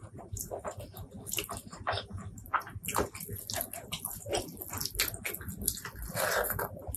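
Close-miked wet, sticky squishing and crackling of fingers pressing and mixing cooked rice with curry sauce, with mouth sounds near the end as a handful of rice is eaten.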